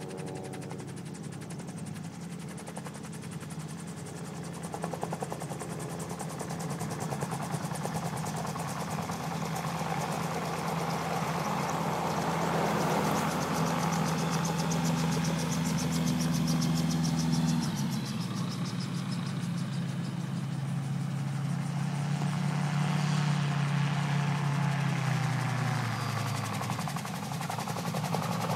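Autogyro's engine and propeller running in flight, growing louder as it approaches, with a rapid even beat. About 17 seconds in the engine note changes, and it wavers up and down near the end.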